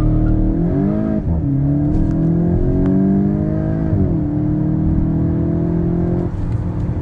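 Volkswagen MK8 Golf GTI's 2.0-litre turbocharged four-cylinder, heard from inside the cabin, pulling under acceleration through the gears. The engine pitch rises, drops at an upshift about a second in, climbs again and drops at a second upshift around four seconds, then runs steadily.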